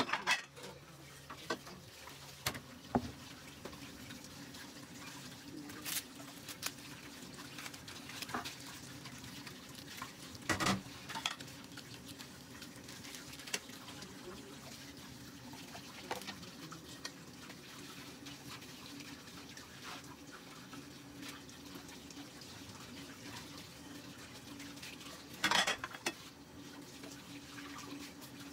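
Occasional clicks, knocks and rustles of hands handling a clay hookah bowl and shisha tobacco packets while packing the bowl, over a steady low hum.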